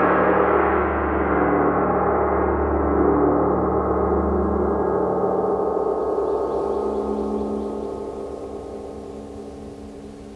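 A gong ringing with a dense shimmer of sustained overtones, dying away steadily over the second half. A deep low hum under it drops out about five seconds in.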